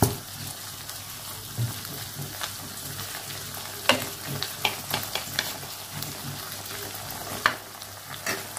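Green beans sizzling steadily in a wok with a little water and seasoning, with a few sharp clicks of a metal spoon about 4 s and 7.5 s in.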